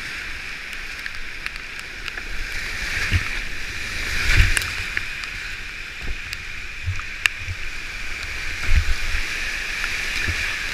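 Steady rushing roar of high-water whitewater rapids around a kayak, with irregular splashes and low thuds of water and paddle strokes hitting the boat. The loudest hit comes about four and a half seconds in.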